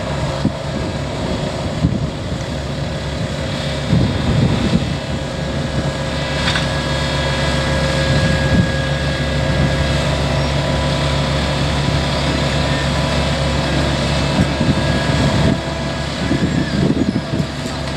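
Engine of asphalt paving machinery running steadily at a constant speed, with a few brief rumbles and some wind on the microphone.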